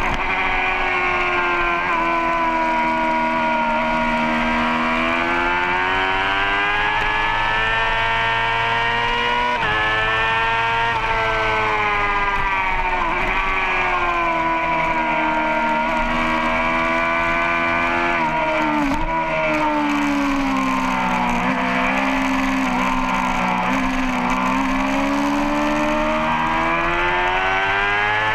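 Racing superbike engine at speed, heard from a tail-mounted camera. The revs rise and fall repeatedly, with several sudden drops in pitch, over a steady rush of wind.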